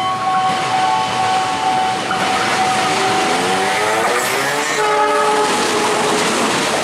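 KAI CC 206 diesel-electric locomotive passing close by, its engine and wheels growing loud from about two seconds in, with a short horn blast about five seconds in.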